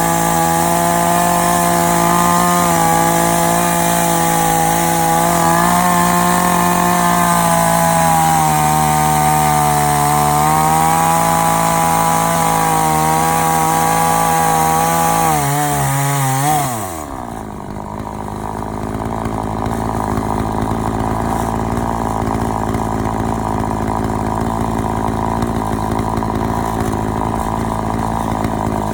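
Chainsaw on an Alaskan chainsaw mill running at full throttle through a log, its pitch sagging and wavering under load for a few seconds. About two-thirds of the way through the throttle is released and the engine drops to a lower, steady idle.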